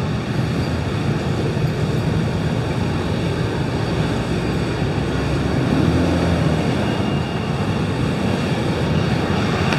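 Steady rumble of busy street traffic, with wind noise on the microphone.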